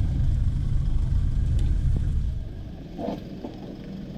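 A vehicle's engine rumbling loudly as it pulls up the climb close by, fading away about two and a half seconds in.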